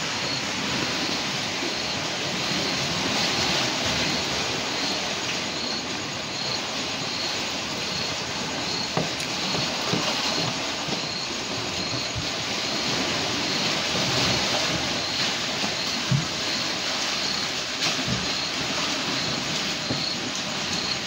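Steady rush of seawater washing around the pier, with a faint high chirp repeating about every half second and a few light knocks.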